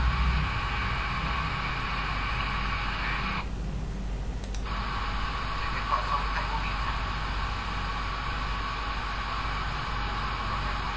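Mercedes M278 twin-turbo V8 idling steadily after its failed cylinder-5 ignition coil was replaced, running without misfires.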